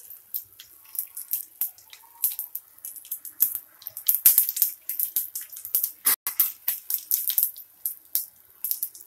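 Hot oil sizzling and crackling with irregular sharp pops as a tempering of peanuts, chana dal, green and dried red chillies and turmeric fries in a kadai. The pops come thickest in the middle stretch.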